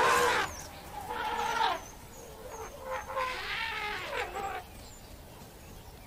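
Animal calls: about four short, pitched cries in a row, the last one longer and falling in pitch.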